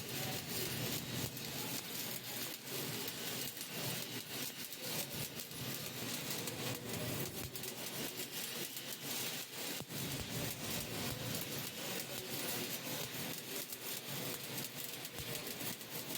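Welding arc crackling and sizzling steadily while a bead is laid, a continuous hiss dense with tiny pops.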